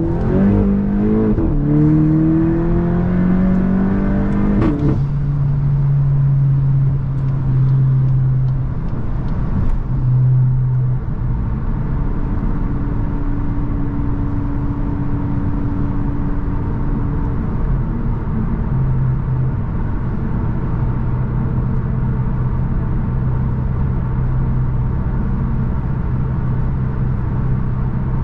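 Volkswagen Mk8 GTI's turbocharged 2.0-litre four-cylinder through an aftermarket iE catback exhaust, on a Stage 1 tune: revs climb hard through two gears, with a sharp crack as it shifts about five seconds in, then it settles into a steady cruising drone.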